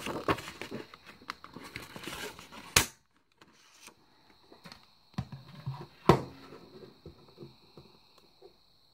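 Sheets of paper being handled and moved on a table: soft rustles and small clicks, with sharp taps near three seconds in and again about six seconds in.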